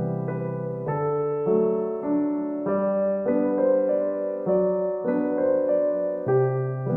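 Background music: piano or electric-piano chords played at a gentle, steady pace, the notes changing about every second.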